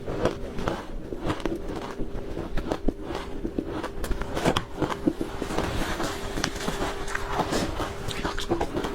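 Close-miked crunching of ice being bitten and chewed, with irregular sharp crunches following one another throughout. A faint steady hum sits underneath.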